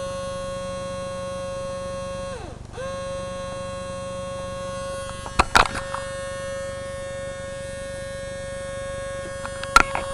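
Steady, high electrical buzz from an RCA CMR300 VHS camcorder that won't play or eject. The buzz sags in pitch and cuts out briefly a couple of seconds in, then comes back, with a few sharp clicks midway and near the end. The owner thinks it means something is stuck inside or the belt has broken.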